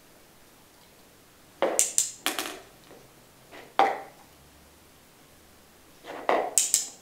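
Three short clusters of sharp clicks and knocks: about two seconds in, a single one near four seconds, and another cluster near the end. They come from a dog clicker-training session in which the dog noses a plastic cup on the floor and takes treats.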